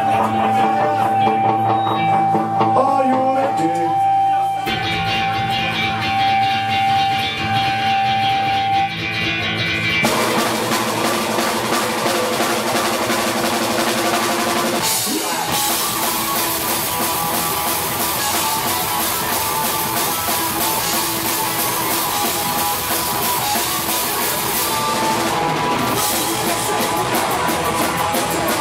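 Punk rock band playing live with electric guitars, bass and a drum kit. A long held high note opens the piece, the bass joins about five seconds in, and the full band with drums and cymbals comes in about ten seconds in, with a brief break a few seconds later.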